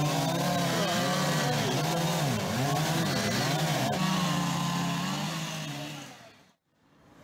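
An engine running steadily at one pitch, its tone wavering slightly, then fading out about six seconds in.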